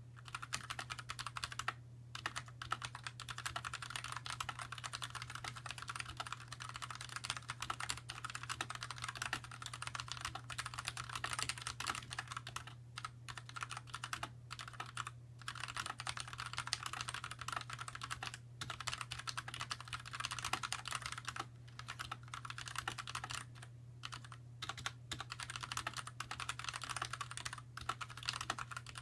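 Continuous fast typing on a Xiaomi YueMi mechanical keyboard with TTC red (linear) switches, with a few brief pauses, over a steady low hum. The keystrokes are free of case ping, by the uploader's account.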